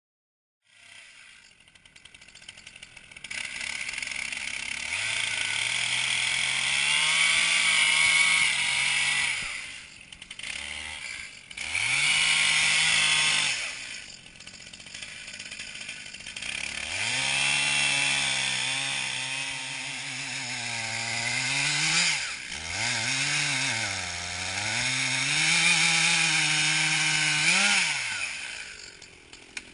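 Two-stroke chainsaw cutting into the trunk of an oak, its engine note dipping and recovering as the bar bites under load. It eases off to a lower, quieter note a few times between cuts.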